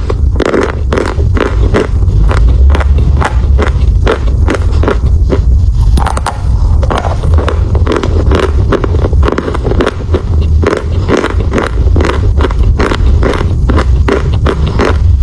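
Close-miked biting and chewing of eating chalk: a dense run of sharp, irregular crunches over a steady low rumble.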